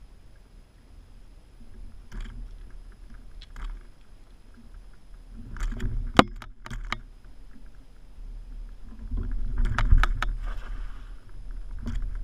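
A cast net being worked from a kayak: scattered clicks, knocks and rustles of the net, its line and the hull, the sharpest a click about six seconds in and a cluster around ten seconds, over a low rumble.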